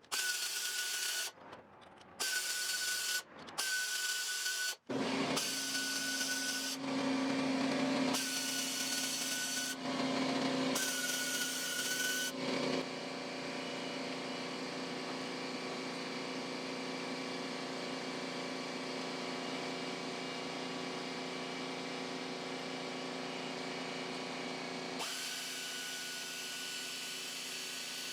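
Handheld power tool running in a series of short trigger pulls of one to two seconds each, then held on steadily for about twelve seconds, then another short pull near the end. Each run carries a steady high whine.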